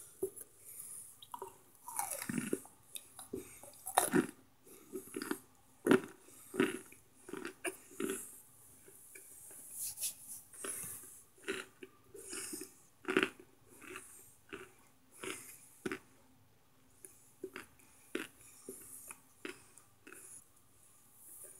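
Close-up chewing and crunching of hard microwaved cornstarch chunks: irregular crisp crunches, a few to several a second, with a handful of louder bites.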